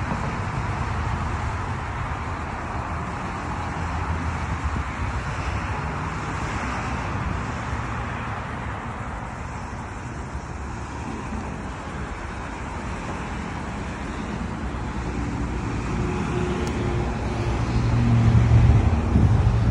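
Steady road traffic noise, with a vehicle's low engine hum growing louder over the last couple of seconds.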